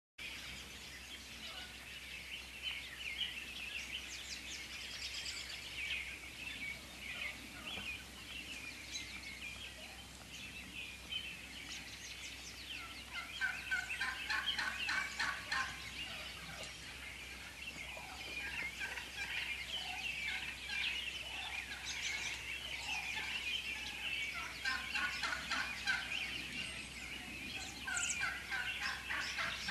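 A flock of wild turkeys calling, many calls overlapping one another. The calling starts suddenly and grows denser and louder about halfway through.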